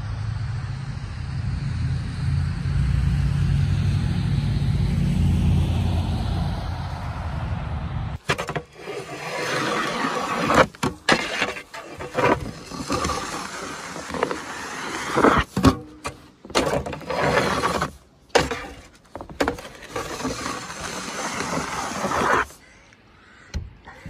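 Road traffic passing through falling snow: a steady low rumble of vehicles. About a third of the way in it gives way to a snow shovel scraping powder snow across pavement, in repeated uneven strokes with short pauses between them.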